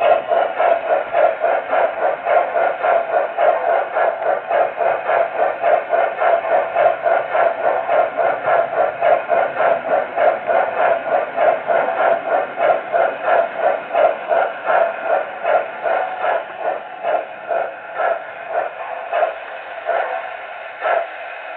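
Electronic steam chuffing from an MTH O-scale model steam locomotive's sound system, a steady run of chuffs at about three a second. The chuffs slow to fewer than two a second and fade near the end as the locomotive slows.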